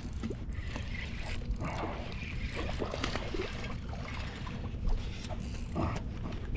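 A fishing reel being wound in as a hooked smallmouth bass splashes at the surface beside the boat, with scattered clicks and knocks.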